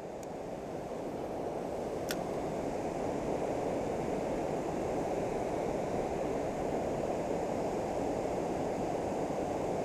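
Steady rush of river water pouring over a low dam spillway, fading in over the first few seconds. A single sharp click about two seconds in.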